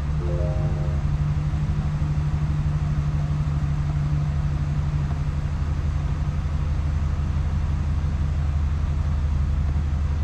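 Chevrolet Silverado 2500 HD engine idling steadily with a low, even hum, just started on fresh oil after an oil change. It is heard from inside the cab.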